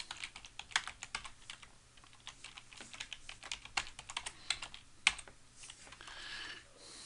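Typing on a computer keyboard: a quick, irregular run of keystroke clicks that stops about five seconds in, followed by a faint hiss near the end.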